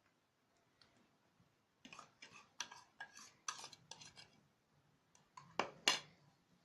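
Kitchen utensils clinking against dishes: a quick run of light clicks and clatters, then two sharper clacks near the end.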